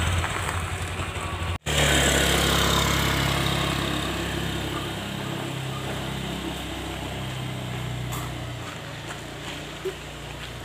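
Small motorcycle engine running as the bike pulls away, the sound fading steadily as it rides off until it is gone shortly before the end. The sound drops out for an instant about a second and a half in.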